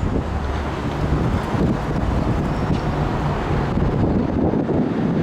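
Wind buffeting the camera's microphone: a loud, uneven low rumble.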